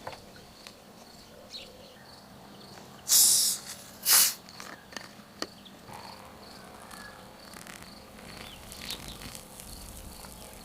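Crickets chirping with a steady, even pulse in the background, broken by two short, loud hissing bursts about three and four seconds in.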